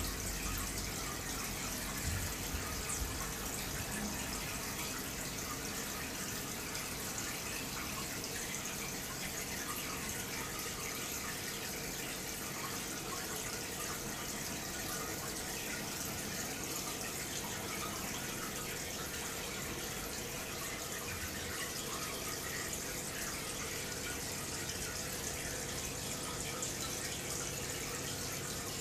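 Steady running and trickling of water from an aquarium's filter circulation.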